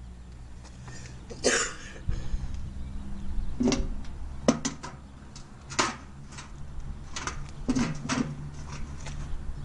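Scattered knocks and clatters, about half a dozen, over a low steady hum.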